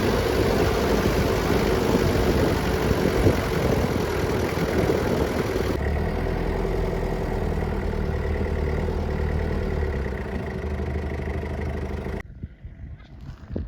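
Engine of a Daihatsu Taft F50 4x4 running, easing to a quieter, steadier hum about six seconds in, then cutting off abruptly near the end.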